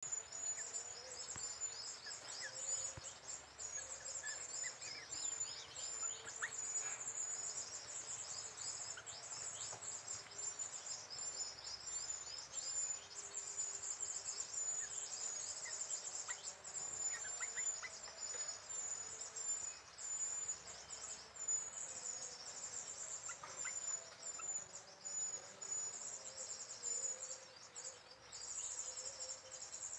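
Insects chirping in a steady, high-pitched pulsing trill, with scattered short bird chirps over it.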